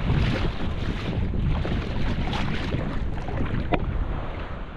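Wind buffeting the microphone with a steady low rumble, over choppy sea water lapping and splashing close by.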